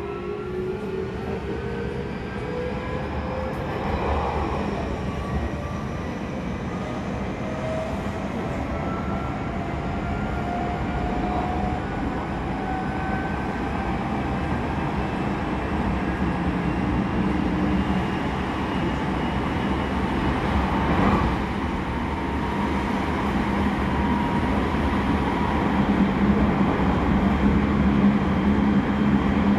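Odakyu 3000 series electric train heard from inside a motor car as it pulls away from a station: the Mitsubishi IGBT inverter and traction motors give a whine of several tones climbing steadily in pitch as it accelerates, over the rumble of wheels on rail. Later the climb levels off into a steadier low hum with the running noise, and there is a brief knock about two-thirds through.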